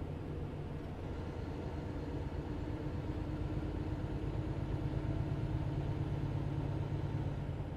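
Semi-truck's diesel engine and road noise heard from inside the cab while driving, a steady low drone that grows a little louder about halfway through.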